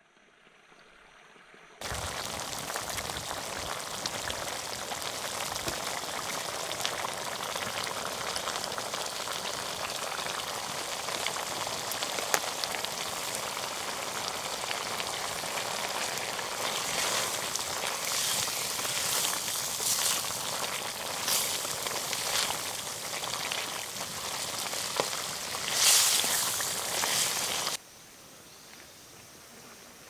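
Mutton curry with sorrel leaves bubbling and sizzling in an iron wok over a wood fire: a dense crackling hiss that starts about two seconds in, gets louder with sharper pops in its later part, and drops away suddenly near the end.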